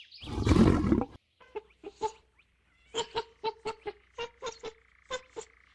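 Domestic fowl calling: one loud harsh squawk, then a run of about a dozen short, clipped clucks.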